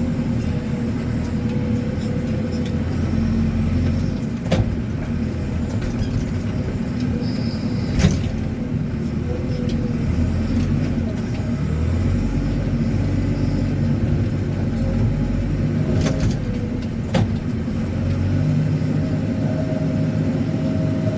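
JCB 4CX backhoe loader's diesel engine running under working load, its note rising and falling as the machine works with the front bucket, with a few sharp knocks now and then.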